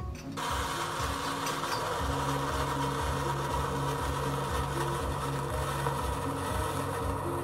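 Demo soundtrack played by an LG Crystal Sound OLED TV, whose screen panel itself works as the speaker: a sparkler's steady fizzing hiss comes in suddenly about half a second in, over background music with a steady beat.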